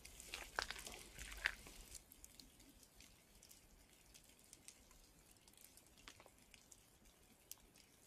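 Footsteps crunching on a gravel trail for the first couple of seconds, stopping suddenly, then faint, scattered drips of water in a wet forest.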